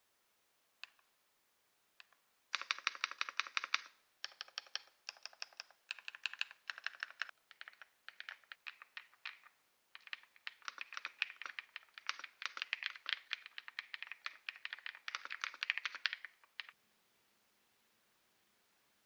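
Keystrokes on an Ajazz AK870 TKL keyboard: two single key presses, then fast runs of typing broken by short pauses, stopping near the end.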